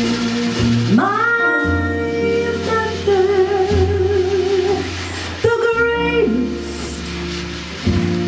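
Jazz ballad performed live: a female voice sings long held notes with vibrato over a band, with a walking low bass line beneath.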